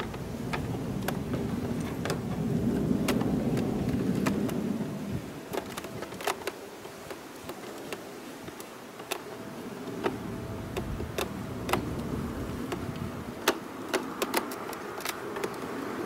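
Scattered sharp clicks and ticks of a Phillips screwdriver turning a screw into a scooter's plastic front panel. A low rumble of a passing vehicle underlies it and fades about five seconds in.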